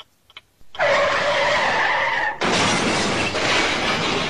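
Car tyres skidding on an icy, slick highway as vehicles lose grip and slide. A couple of faint clicks are followed, under a second in, by a loud steady-pitched squeal. After about a second and a half it gives way to a rougher skidding noise.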